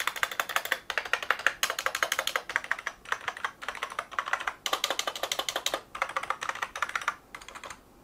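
Surefire KingPin RGB gaming keyboard's springy keys pressed rapidly in runs, a fast clatter of key clicks broken by short pauses, thinning out and getting quieter near the end.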